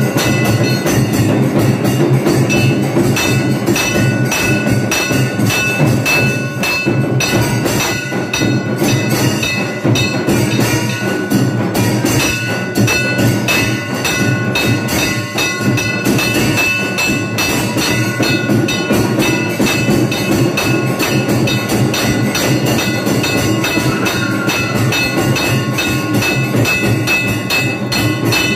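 Temple bells ringing continuously with rapid drumming and clanging percussion in a dense, steady clatter, the din that accompanies the aarti lamp-waving in a Tamil Hindu temple.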